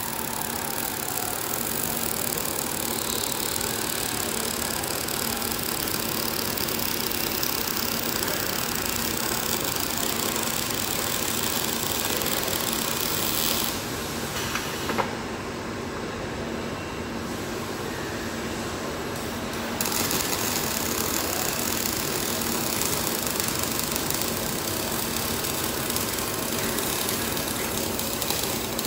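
Robotic MIG welding arc crackling and hissing steadily. About halfway through the arc cuts off, leaving a quieter machine hum with a single click as the torch moves off. After a few seconds the arc strikes again and welds on.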